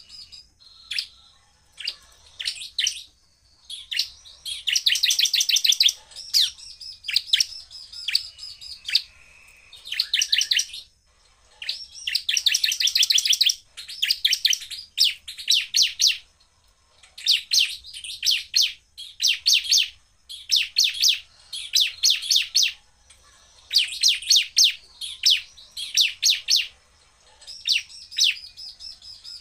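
Bar-winged prinia (ciblek) singing in loud bursts of very rapid, repeated high notes, the fast 'shooting' song of a bird in full voice. Each burst lasts about one to two seconds, with short pauses between.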